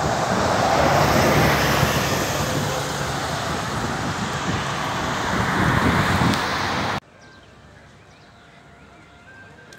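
Steady roar of road traffic and wind on a bridge, which cuts off suddenly about seven seconds in and gives way to a faint, quiet outdoor background.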